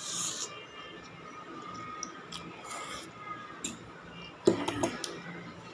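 Instant noodles slurped briefly at the start, then chewing and small clicks of cutlery, with a loud cluster of spoon and fork clinks and scrapes against a steel bowl about four and a half seconds in.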